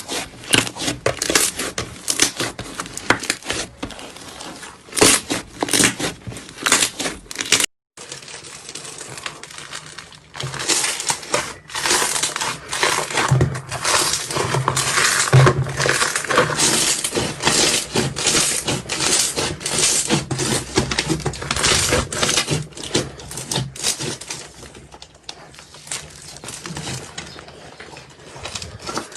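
Slime being squeezed, poked and stretched by hand, giving dense, rapid crackling and popping clicks. The sound drops out briefly about eight seconds in, then the crackling goes on, denser.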